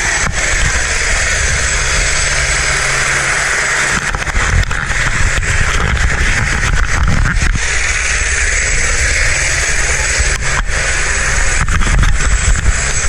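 Loud, steady helicopter noise: a dense din with an uneven low rumble and a few brief knocks partway through.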